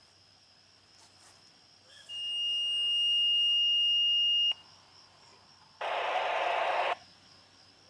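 A single steady high-pitched electronic beep lasts about two and a half seconds, swells slightly, and cuts off abruptly. About a second later comes a burst of hiss lasting about a second.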